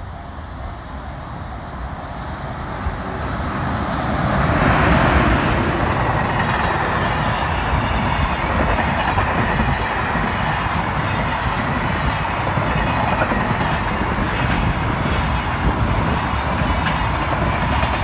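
Freight train of container wagons approaching and passing close by over a level crossing: the rumble grows over the first few seconds and is loudest about five seconds in, then holds steady as the wagons roll past with a regular clickety-clack of wheels.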